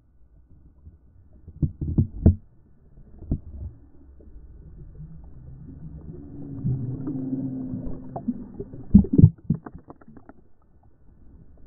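Muffled churning of shallow surf against an action camera in its waterproof housing as it goes under and breaks the surface, with a swelling rumble in the middle. Dull thumps come about two seconds in, and the loudest are a pair near the end.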